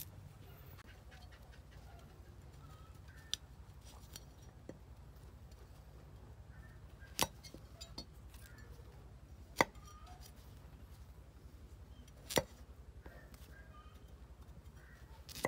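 Knife cutting fresh broccoli on a wooden chopping block: a handful of sharp knocks of the blade against the wood, spaced a few seconds apart, with faint snicks of the florets being trimmed between them.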